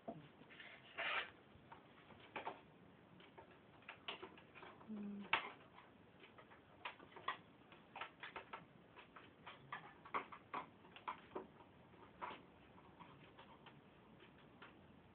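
Faint, irregular clicks and taps of small hard objects being handled, a few a second and uneven in strength.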